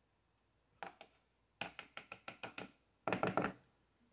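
Metal spoon tapping and scraping against a plastic tub while working cottage cheese. A couple of single taps come first, then a quick run of about six taps a second, then a louder cluster near the end.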